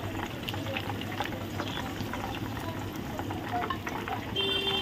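Masala-coated chicken pieces deep-frying in hot oil in a kadhai: a steady bubbling sizzle with many small crackles. This is the first fry of a double fry.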